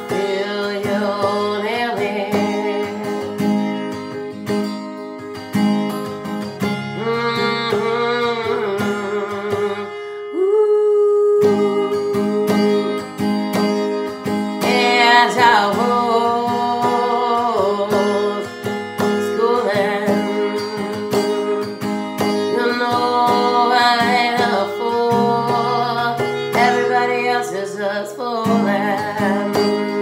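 A woman singing with a strummed acoustic guitar with a capo. About ten seconds in the guitar stops while she holds one note, then comes back in louder.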